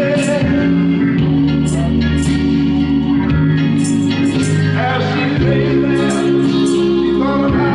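Music: a song with singing over sustained chords and a bass line, with regular cymbal strokes.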